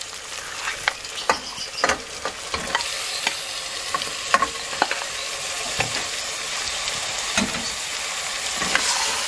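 Marinated mutton pieces dropping into hot onion-tomato masala in an aluminium pressure cooker, sizzling and frying, with sharp clicks and knocks of the spoon and glass bowl against the pot as the meat is scraped in. The sizzle builds and grows steadily louder.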